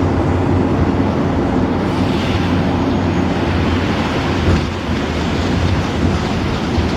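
Optare Solo M990 bus with a Mercedes turbo diesel engine and Allison automatic gearbox, running steadily under way.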